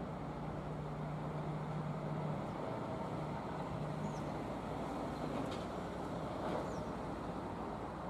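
Hitachi ZX200 hydraulic excavator's diesel engine running steadily under working load as the machine swings its empty bucket and lifts the boom. The low engine note is strongest in the first couple of seconds.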